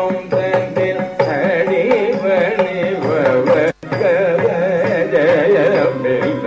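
Carnatic dance music: a woman singing an ornamented, wavering melody with keyboard and mridangam accompaniment. The sound cuts out for an instant about halfway through.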